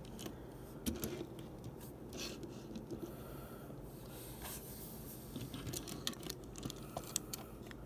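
Faint handling noise of small die-cast cars being moved by hand on a wooden tabletop: soft rubbing with scattered light clicks and taps every second or so.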